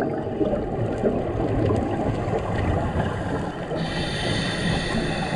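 Underwater rumble and gurgling of scuba divers' exhaled air bubbles rising through the water. Near the end a higher hiss with thin whistling tones sets in.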